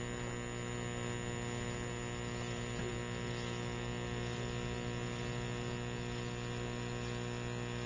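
Steady electrical mains hum with a stack of even overtones and a faint hiss, from the recording's sound system.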